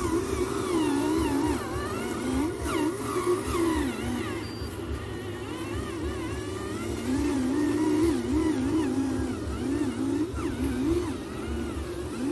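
Electric motors of remote-control construction vehicles whining, the pitch rising and falling constantly as the throttle is worked, over an irregular low rumble.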